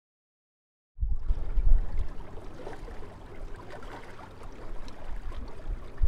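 Small waves lapping on a lake, with a low rumble of wind on the microphone. It starts abruptly after about a second of silence.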